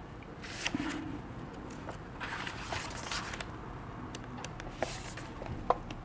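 Soft rustling and handling noise, with scattered light clicks and one sharper click near the end.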